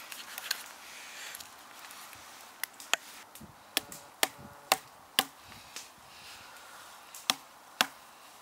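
Batoning with a custom bushcraft knife: a chunk of wood knocks down on the knife's spine about nine times at an uneven pace, driving the blade into a log. In the first couple of seconds the blade shaves curls off a stick, a soft scraping.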